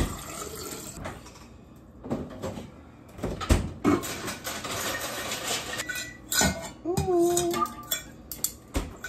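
Kitchen handling noise from a drinks tumbler and its plastic lid: sharp knocks, clinks and scrapes, with a hiss lasting a couple of seconds in the middle and a brief squeak a little before the end.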